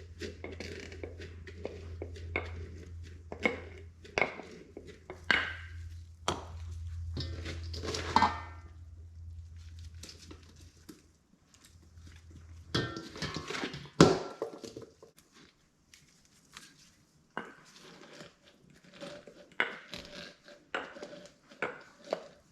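Salted shredded cabbage being packed down hard into a glass mason jar for fermenting: irregular knocks and scrapes against the jar, the loudest a sharp knock about two-thirds of the way through. A low hum underneath stops a little past halfway.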